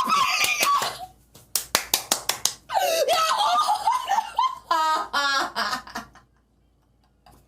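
A man laughing and yelling in excitement in a small room, with a quick run of sharp smacks about a second and a half in, then quiet near the end.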